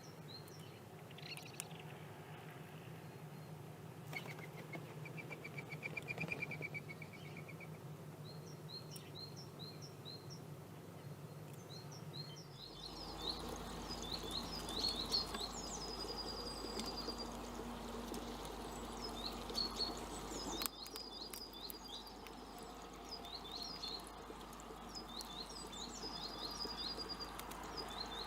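Wild songbirds singing and calling, with many quick high chirps repeated over and over and a short trill about five seconds in. A faint low hum sits under the first part and gives way to a different background about twelve seconds in.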